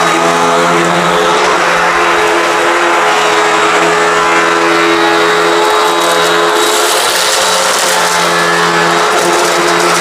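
Hoover WindTunnel High Performance upright vacuum cleaner running steadily over a thick outdoor rug: a loud motor hum with a hissing airflow, its tone shifting slightly now and then.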